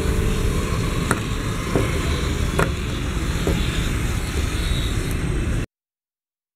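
Steady rushing background noise with a few faint clicks from small plastic robot parts being handled on a table. The sound cuts off suddenly to dead silence a little before the end.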